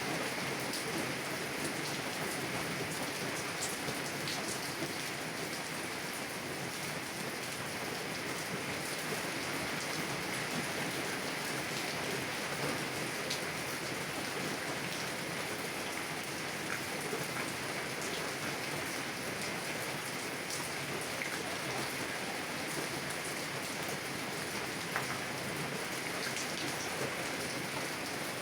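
Heavy rain falling on a car window: a steady hiss with scattered sharper ticks of single drops.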